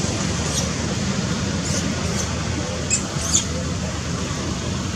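About five short, high-pitched squeaks from an animal in the trees, spread over the first three and a half seconds, the loudest two about three seconds in. They sound over a steady low rumble and hiss.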